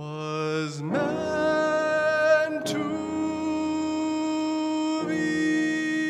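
Man singing long held notes while accompanying himself on a grand piano. His voice slides up about a second in and holds a wavering note, then moves to a new note just before three seconds, over sustained piano chords that change again about five seconds in.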